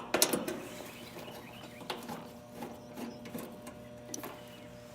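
Steady electrical hum and buzz from a Goodman air conditioner's compressor, stalled and trying to start, with a few sharp clicks at the start. The hum is the sign of a failed dual run capacitor that leaves the compressor unable to get going.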